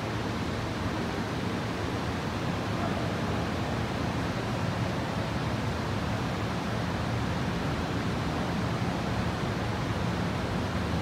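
Steady, even rumble and hiss of an MTR M-train pulling slowly into an underground platform behind platform screen doors. The train is held to about 22 km/h or less by a speed restriction over a cracked rail.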